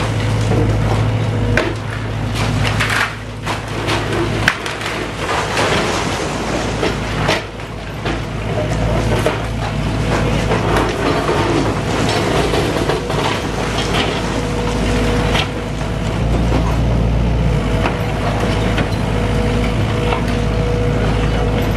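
Diesel engine of a SANY mini excavator running steadily, while timber beams and rubble knock and clatter during demolition, with many short sharp knocks.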